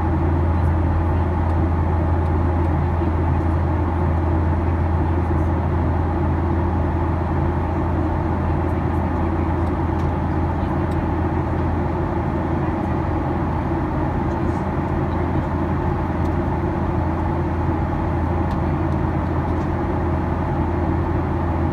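Steady cabin drone of a Boeing 737-800 in flight, heard from a window seat over the wing: the hum of its CFM56-7B turbofans and the rush of air past the fuselage, with a strong low hum underneath that does not change.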